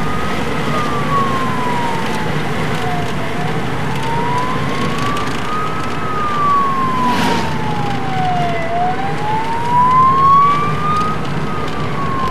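Fire truck siren in a slow wail, rising and falling about every five and a half seconds, heard from inside a following car over its engine and road noise.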